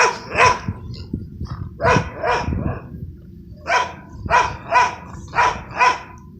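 A dog barking repeatedly, about nine sharp barks, mostly in quick pairs.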